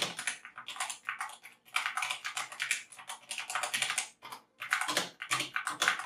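Typing on an HK GK61 60% mechanical keyboard: a fast run of keystroke clicks, with short pauses about one and a half and four seconds in.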